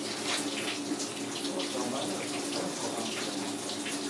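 Tap water running steadily, the stream splashing over a skinned lionfish as it is rinsed by hand.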